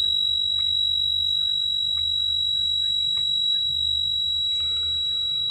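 A steady, unbroken high-pitched warning buzzer tone over a low hum, with a few light taps.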